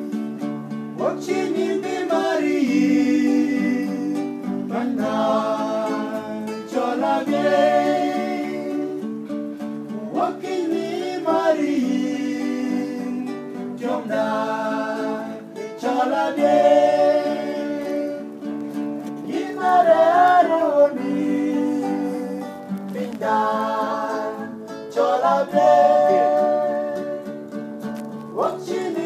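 Men singing a song to acoustic guitar accompaniment. The singing comes in phrases a few seconds long with short breaks between them, over the guitar's steady chords.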